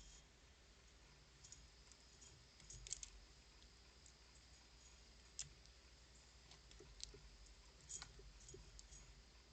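Near silence with faint, irregular sharp clicks and ticks scattered through it, the strongest about three seconds in and again near the end.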